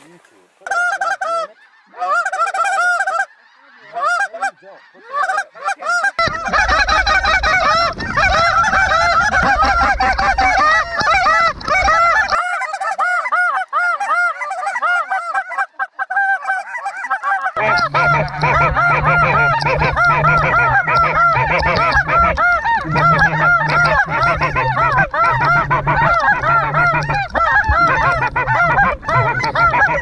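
A large flock of snow geese calling overhead: many overlapping short, high honks, scattered at first and thickening into a dense, continuous chorus about six seconds in. A low rumble runs under the calls for a stretch near the start of the chorus and again through the second half.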